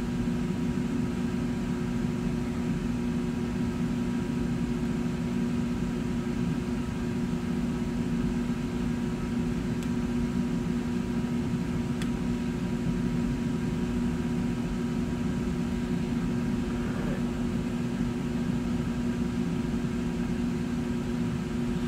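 Steady machine hum with a low drone and a few fixed tones, unchanging throughout; two faint ticks near the middle.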